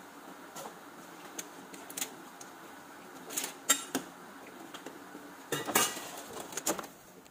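Scattered light clinks and knocks of kitchen things being handled over a steady background hiss, with a louder cluster of knocks and rubbing near the end.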